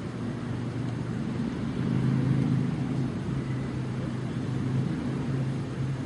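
A low, steady engine rumble with a hum in it, swelling about two seconds in and easing off near the end.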